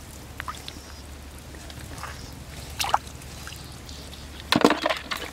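Water sloshing, with a few short splashes; the loudest comes about four and a half seconds in.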